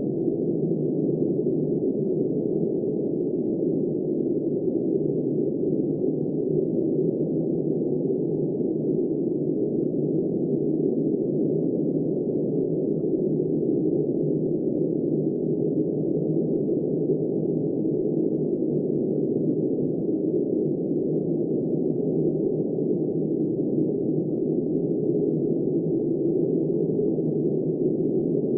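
Steady, muffled, deep rushing of blizzard wind, an even roar with no high hiss and no rise or fall in strength.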